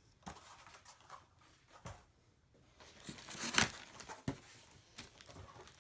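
Cardboard and plastic packaging being handled in a foam-packed shipping box: scattered rustles and light knocks as a cardboard insert is lifted out, with a louder rustle about three seconds in.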